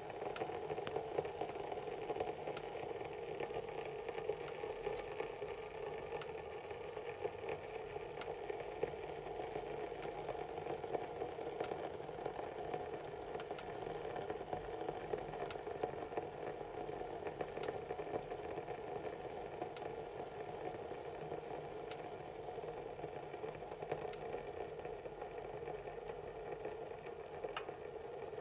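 Water and herbs boiling in a glass pot on a hob: a steady bubbling rumble with fine crackles throughout.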